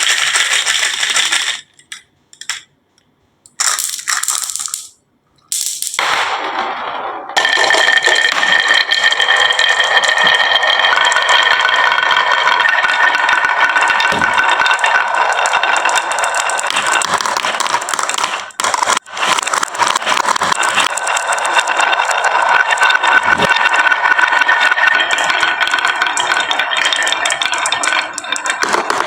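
Many glass marbles rolling and clattering down a HABA marble run track, a dense continuous rattle with a ringing note. It comes in a few short bursts at first, then runs on unbroken.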